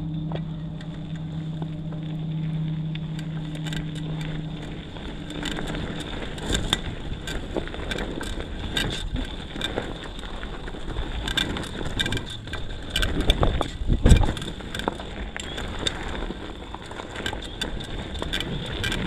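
YT Tues downhill mountain bike rolling down a dirt forest singletrail: tyre noise on the dirt with frequent clicks and rattles from the bike, and a sharp knock about 14 seconds in. A low steady hum is heard for the first five seconds or so.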